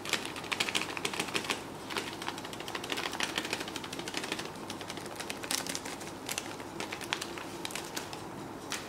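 Dried oregano being crumbled between fingers and sprinkled by hand over raw chicken breasts in a roasting tray. It makes a quick, uneven run of small crackling clicks that comes in bursts.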